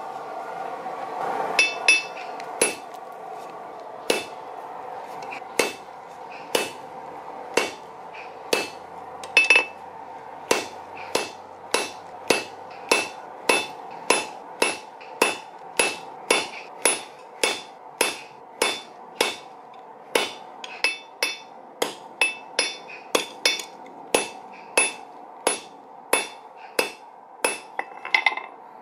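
Hand hammer striking red-hot steel on a steel anvil, each blow a sharp clang with a short metallic ring. The blows come sparse and uneven at first, then settle into a steady rhythm of about two a second.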